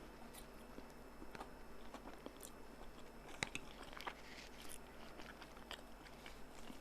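A person chewing and biting noodles, faint, with scattered soft mouth clicks.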